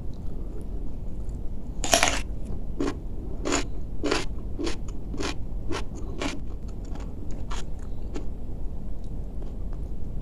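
A person biting into raw cucumber and chewing it: one loud crunching bite about two seconds in, then a run of crisp chewing crunches about one every two-thirds of a second, growing fainter after about six seconds.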